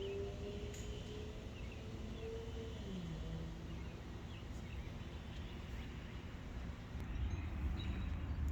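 Outdoor ambience: scattered faint bird chirps over wind rumble on the microphone, with a distant engine hum that drops in pitch about three seconds in. The wind rumble grows stronger near the end.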